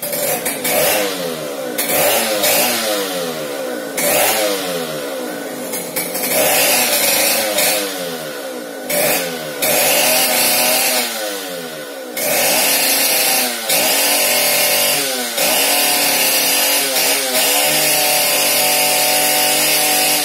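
A small engine, likely a chainsaw, revving up and down over and over, its pitch rising and falling every second or so, with a harsh rasp on top.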